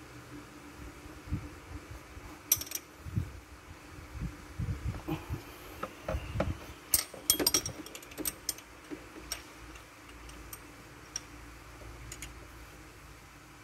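Irregular clicks, taps and dull knocks of hand tools on metal as bolts on the engine fan and water pump are tightened.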